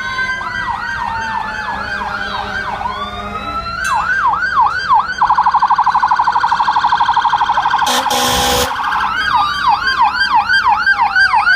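Fire engine sirens: electronic sirens yelping with rapid up-and-down sweeps, over a slowly falling siren wail. From about five seconds in, a siren switches for a few seconds to a fast pulsing warble, ending in a short burst of hiss. Then the yelping resumes along with a second slowly falling wail.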